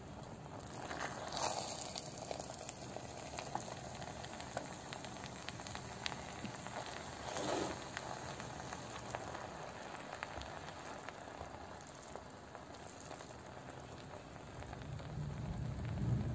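Steady sizzling hiss from a pot of cooked braised rice on the stove. Twice, about a second in and again past seven seconds, there is a brief louder scrape as the rice is turned with a spoon.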